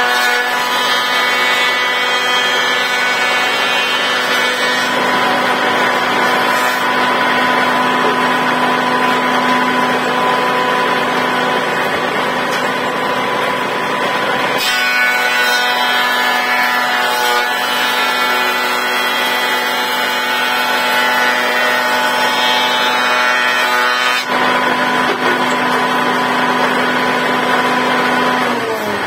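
Elu DAH 176 planer-thicknesser running steadily with a motor whine while boards are fed through and planed, the cutting noise shifting as each board goes in and out. Right at the end it is switched off and begins to wind down, its pitch falling.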